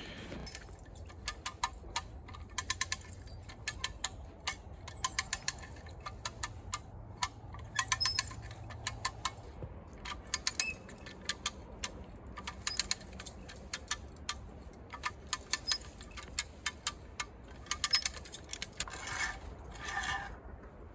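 Strongway come-along (hand ratchet cable winch) being cranked to pull a log, its pawl clicking over the ratchet gear in quick bursts of several clicks, again and again.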